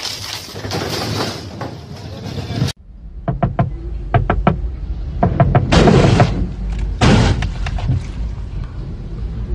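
A loud, steady noise stops abruptly. It gives way to a car cabin's low rumble with scattered knocks and clicks, and two loud bursts, about a second apart, of water from a hose spraying onto the car's windshield.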